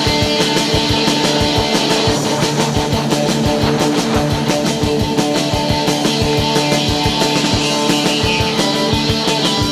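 Instrumental passage of a rock song: sustained chords over a fast, steady drum beat, with no singing.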